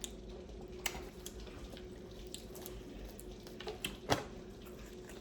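Faint steady hiss of rain outside, with scattered wet clicks and smacks of someone eating, the sharpest about four seconds in.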